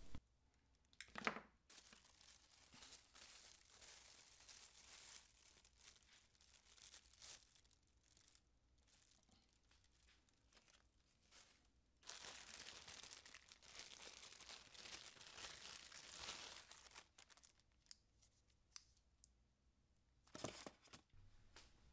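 Faint crinkling and rustling of plastic bags as accessories are handled in a polystyrene packing tray, in two spells, with a couple of short knocks.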